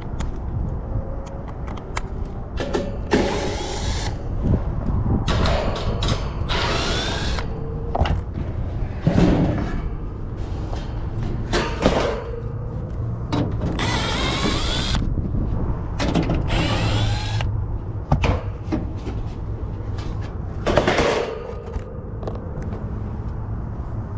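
Hand work on the wiring inside a metal HVAC unit cabinet: repeated scraping and rasping of wires and metal, with scattered knocks, over a steady low hum.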